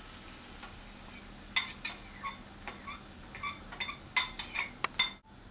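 Metal spoon clinking and scraping against a ceramic bowl, a quick irregular run of sharp ringing clinks, as the last of the beaten egg is scraped out into the pan. Before the clinks there is a faint hiss.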